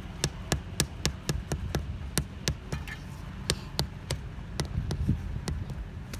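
Rapid sharp tapping, about four strikes a second and uneven in strength: a hand tool striking hard paving material.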